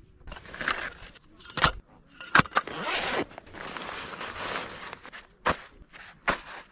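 Handling noises: rustling and scraping with four sharp clicks or knocks spread through it.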